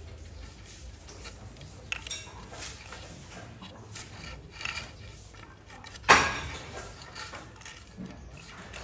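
Hollow bamboo poles lashed with string, knocking and clacking against each other and the concrete floor as they are handled. One loud knock about six seconds in rings briefly.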